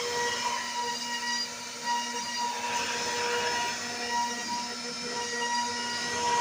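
CNC router spindle running at high speed while it cuts, a steady whine over a rushing cutting noise.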